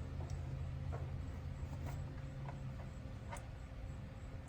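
Light clicks of an Allen wrench working in an HVAC service valve stem, a few scattered, about one a second, over a steady low hum.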